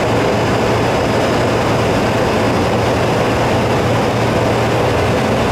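Steady cockpit noise of an aircraft on short final approach: an even rush of airflow over a constant low engine hum.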